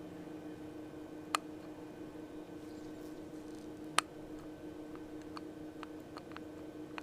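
Sharp metallic clicks of a manual locking hub's parts being handled and tried on the spline: one click about a second in, a louder one about four seconds in, then several faint ticks. A steady low hum runs underneath.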